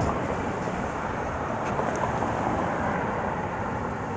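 Steady rushing noise of road traffic going by.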